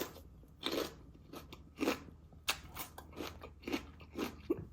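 Raw chili peppers being bitten and chewed close to the microphone: a string of short, irregular wet crunches, several each second or two.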